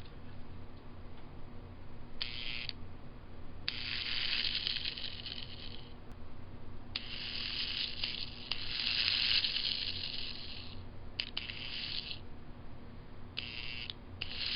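Lionel 2018 toy train locomotive's freshly cleaned electric motor and gears run in short bursts, a buzzing, rattling whir that starts and stops several times, with the last run carrying on near the end. It is a bench test showing the rebuilt motor runs.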